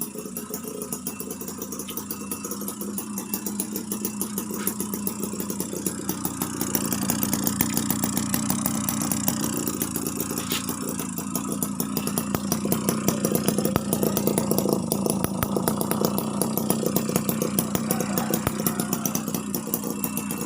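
Homemade miniature two-stroke engine made from a refrigerator compressor, running with a rapid, even firing beat; it gets a little louder about seven seconds in.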